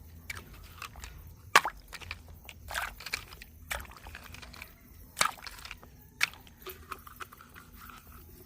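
Plastic toy vehicles being handled and cleaned: scattered clicks, knocks and short scrapes, the sharpest about a second and a half in and again around five seconds in.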